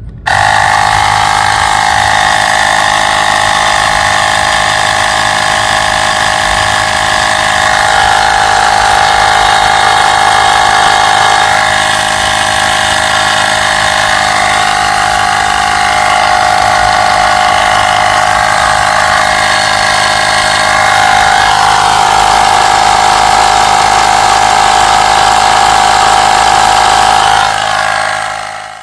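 Small electric air pump running steadily with a constant hum, starting abruptly and fading out near the end.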